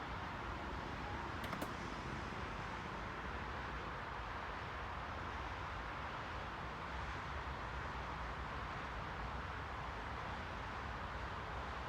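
Steady, even white-noise hiss with a low rumble underneath and a couple of faint ticks about a second and a half in.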